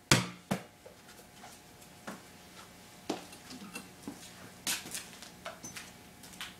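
Basketball at about 8 PSI bouncing on a concrete floor: one loud bounce with a short ring and a smaller bounce about half a second later, then scattered light knocks and footsteps.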